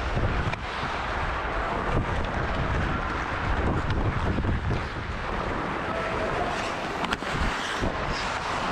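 Wind rumbling on a head-mounted GoPro's microphone as the hockey player skates, with skate blades scraping the ice and a sharp click about seven seconds in.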